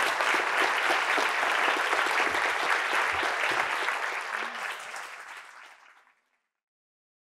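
Audience applauding, many hands clapping at once, fading out about five to six seconds in.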